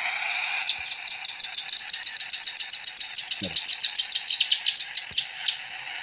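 Velvet-fronted nuthatch calls: a fast run of sharp, high chips, about eight a second, starting about a second in and breaking off near the end.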